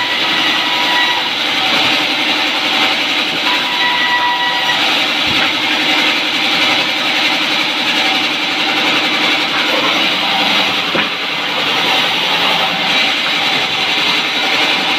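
Large band sawmill running steadily, its vertical blade ripping lengthwise through a log as it is fed along the table.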